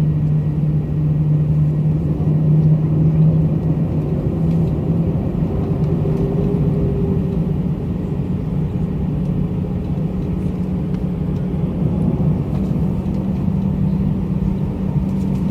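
Airliner engines droning steadily, heard inside the passenger cabin: a loud low rumble with a hum that shifts up slightly in pitch about two-thirds of the way through.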